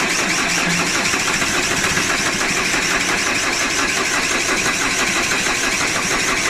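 Starter motor cranking a 2010 Vauxhall Insignia diesel engine in an even, rapid rhythm, turning it over without it firing. The no-start comes from a lazy fuel pump, with only a little diesel reaching the cracked injector pipe.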